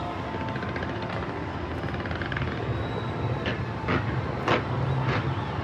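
Fireworks going off: a dense, continuous crackling rumble of many bursts. From about three and a half seconds in, several louder sharp bangs follow roughly every half second.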